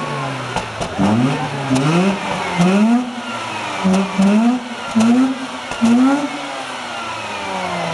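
Mazda RX-8's twin-rotor Wankel rotary engine being revved with the car standing still: repeated quick throttle blips, each rising sharply in pitch and dropping back, about once a second.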